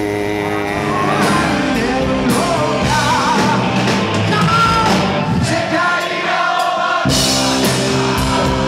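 Rock song with a sung vocal line over a full band. The bass and drums drop out about six seconds in and crash back in about a second later.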